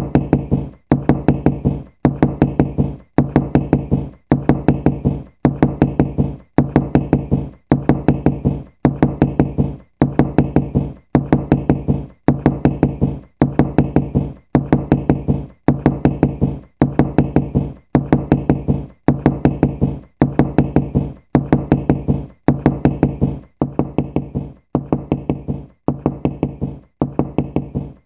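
Knocking, repeated without a break: quick runs of four or five knocks, one run about every second, with most of the sound low and dull.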